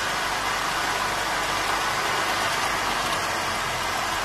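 Holden VZ Commodore's 3.6-litre Alloytec V6 idling steadily and smoothly, running beautifully on all six cylinders: the no-spark misfire on cylinders 1, 3 and 5 is cured now that a missing engine earth has been reconnected.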